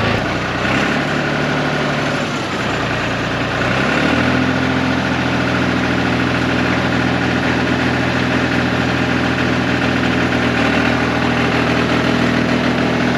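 John Deere 350B crawler dozer engine running. Its note drops about a second in, then rises about four seconds in and holds steady while the dozer moves.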